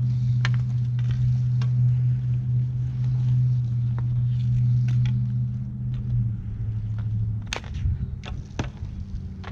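A steady low hum that drops slightly in pitch about six seconds in and fades out a second later, with scattered sharp clacks of hockey sticks and puck on the concrete rink.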